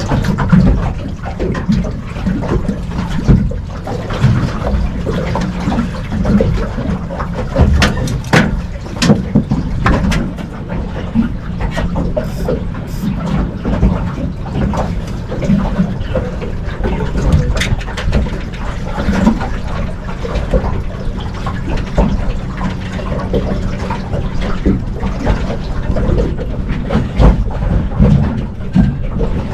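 Water sloshing and splashing around a small fishing boat, with scattered knocks and clatter.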